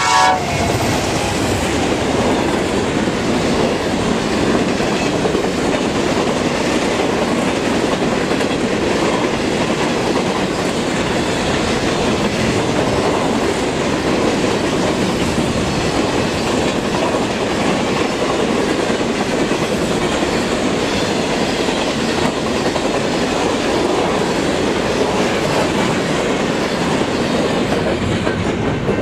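Empty Herzog ballast hopper train passing close at high speed: a steady, loud rush and clatter of steel wheels on the rails and rattling empty cars, beginning just as the two diesel locomotives go by.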